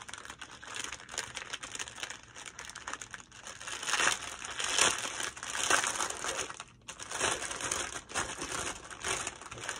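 Clear cellophane wrapping crinkling and rustling as a package is handled and opened, in irregular bursts that are loudest a few seconds in, with a short pause about two-thirds through.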